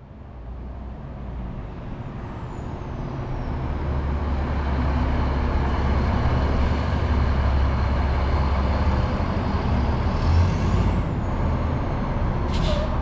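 Heavy truck engine running as the truck pulls in, a steady low rumble that grows louder over the first few seconds and then holds, with a short hiss near the end.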